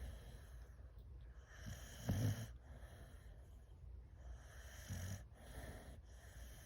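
Boxer dog snoring while asleep: a deep snore about two seconds in and another near five seconds, with airy breathing between them.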